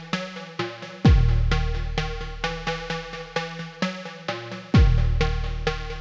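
Electronic background music: quick plucked synthesizer notes over deep bass hits that fall in pitch, about a second in and again near the end.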